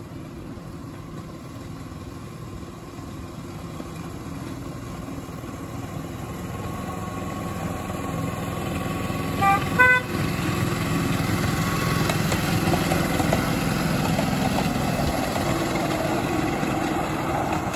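Miniature-railway diesel locomotive running as it approaches, its engine getting louder, with two short horn toots about ten seconds in.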